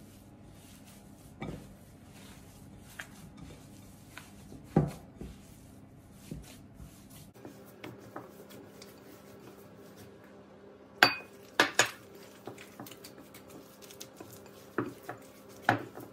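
Hands kneading cornmeal dough in a glass mixing bowl: quiet working sounds broken by scattered sharp clacks of the glass bowl being knocked and shifted, the loudest a pair about two-thirds of the way through and a few more near the end.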